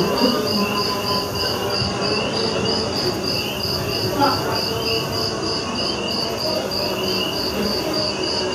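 Insect-like chirping in an even rhythm, about three and a half short high chirps a second, over a steady low rumble.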